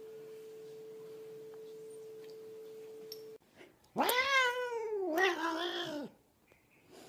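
A steady single-note tone stops abruptly about three seconds in. Then a domestic cat gives a loud, drawn-out, wavering yowl lasting about two seconds.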